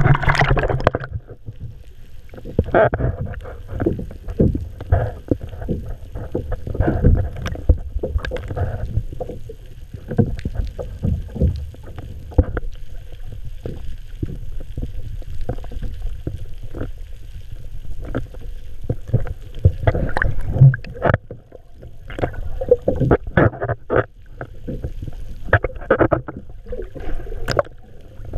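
Muffled underwater sound from an action camera held below the water's surface: low rumbling and sloshing broken by many irregular knocks and thumps.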